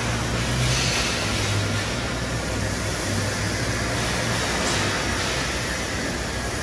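Steady low engine hum under constant background noise.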